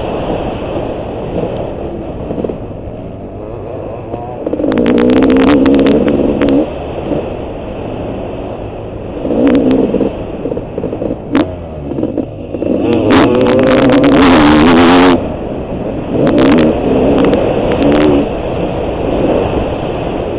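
Honda CR500 two-stroke single-cylinder motocross engine ridden hard on a dirt track, heard onboard: about four surges of full-throttle revving, the longest about two seconds long, with quieter closed-throttle stretches between them. A few sharp knocks come through during the surges.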